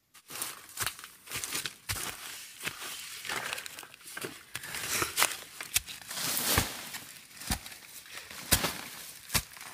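A metal digging blade chopping into forest soil around a bamboo shoot, about a dozen irregular strikes, with dry leaf litter crackling and rustling between them.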